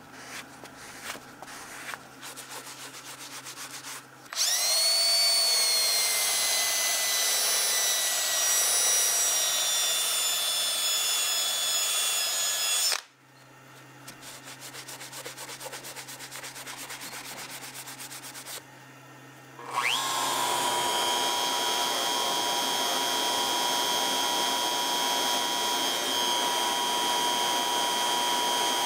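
A paper towel rubs over an aluminum plate, broken by about nine seconds of a loud whining motor. About two-thirds of the way in, a CNC router spindle spins up with a rising whine and settles into a steady high-pitched run as its V-bit engraves lines into the aluminum plate.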